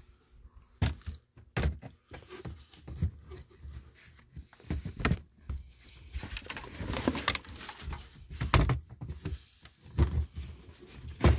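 Hands rummaging around a car's interior, handling the carpet, the floor mat and loose trim: a string of irregular knocks and thunks with rustling between them.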